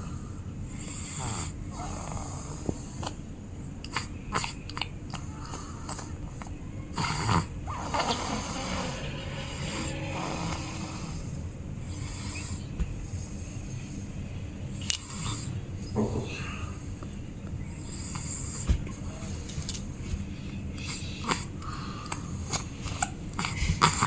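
A baby snoring, in uneven noisy breaths with occasional sharp clicks.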